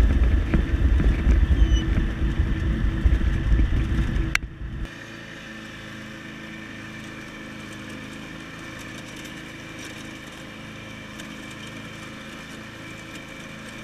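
Kubota T1760 lawn tractor engine running steadily as the tractor drives across the lawn. For the first four or five seconds a loud, uneven low rumble covers it; then, after a click, only the steady engine drone is left.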